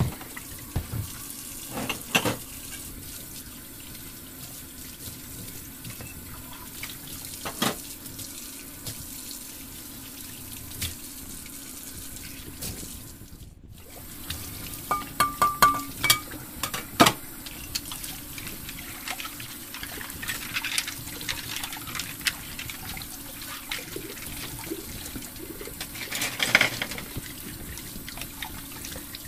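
Water running from a toy kitchen playset's faucet over a steady low hum, with scattered plastic clicks and taps, several in quick succession about halfway through and again near the end.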